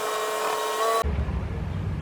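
Sustained musical tones that cut off abruptly about a second in, giving way to a steady, pulsing low engine rumble from lawn-mowing equipment.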